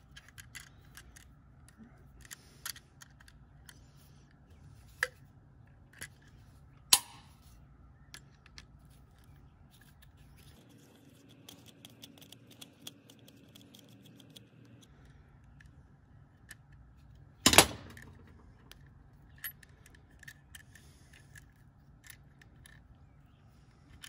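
Scattered clicks, taps and light scrapes of stiff copper wire and a screwdriver against a plastic NEMA 6-50 receptacle as its terminals are fitted and tightened. A few sharper clicks stand out, the loudest a single snap about two-thirds of the way through.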